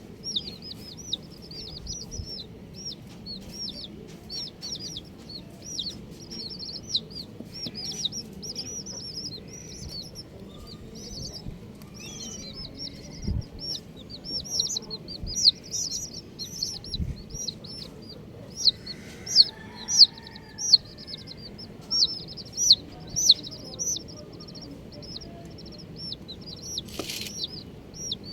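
A group of baby chicks peeping continuously: many short, high-pitched cheeps overlapping, growing louder about two-thirds of the way through. Near the end there is one brief scuffing noise.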